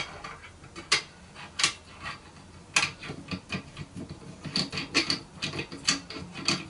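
Light clicks and taps from the DJI Ronin-MX gimbal stand's parts as they are handled and fitted together by hand. A scatter of sharp ticks, coming more often in the second half.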